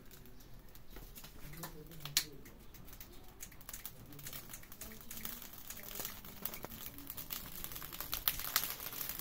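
Charcoal fire under skewered kebabs crackling and sizzling while it is fanned with a piece of cardboard: scattered sharp clicks and ticks over a light hiss, growing busier toward the end.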